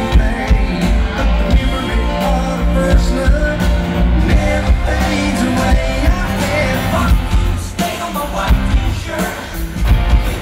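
Live country-rock band playing loud, with a male lead singer, heard from within the concert crowd.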